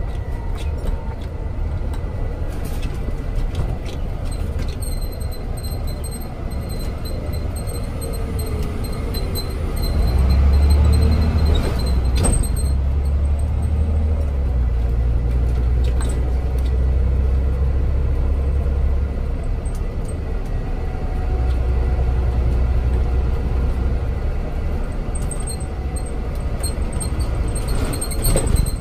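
Scania N94 Omnidekka double-decker bus's diesel engine running under way, heard inside the upper deck as a steady low rumble. The rumble grows louder about a third of the way in and stays strong for much of the rest, with faint whining pitch glides above it.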